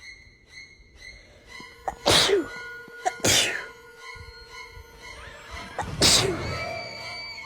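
A person sneezing in a fit: three loud sneezes, about two, three and six seconds in, each a sharp burst that falls away quickly, over background music.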